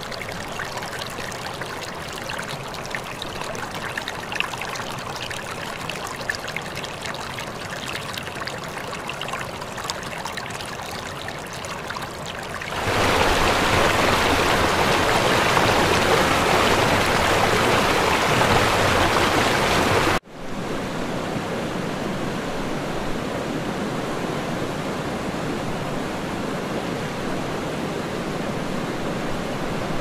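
Waterfall: a steady, even rush of falling water. About 13 seconds in it jumps to a much louder, fuller rush, then cuts off abruptly about 20 seconds in and comes back as a softer, steady rush.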